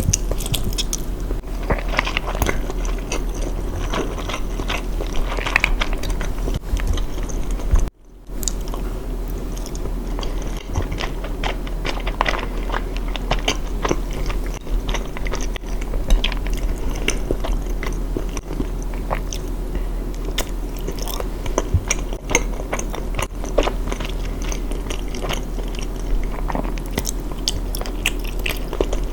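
Close-miked eating: repeated biting and chewing with many small crunchy clicks over a steady low hum, broken by a brief gap about eight seconds in.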